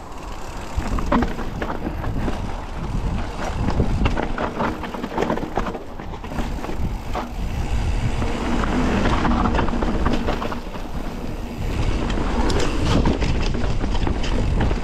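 Mountain bike ridden along a dirt trail: tyres rolling on the ground, with the bike rattling and clicking over bumps. Wind rumbles on the microphone throughout.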